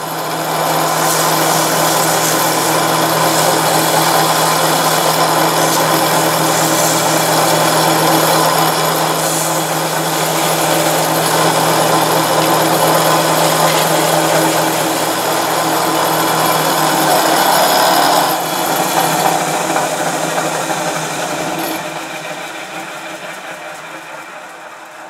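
Homemade wood lathe running, its belt-driven electric motor humming steadily as it spins a turned spindle that is being hand-sanded. About 18 seconds in the motor is switched off and the lathe coasts down, the sound fading away.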